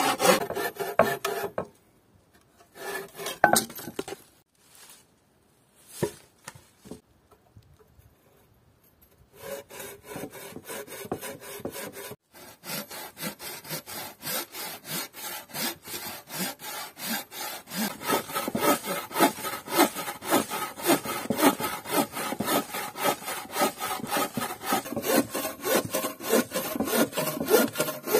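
Bow saw cutting through a log in quick back-and-forth strokes. The sawing stops about two seconds in, with a few knocks of wood during the pause, then starts again about nine seconds in and grows louder in the second half.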